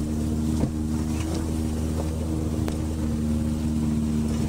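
Subaru Forester's flat-four engine pulling steadily under load as the car climbs a steep slope, with a couple of sharp knocks as it goes over rocks.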